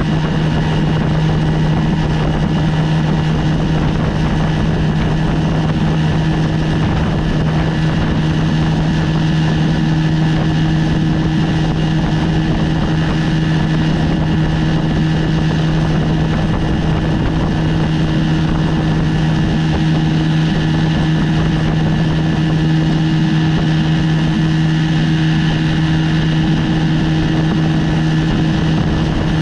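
1973 Johnson 20 hp two-cylinder two-stroke outboard motor running under way at a steady throttle, its pitch holding constant.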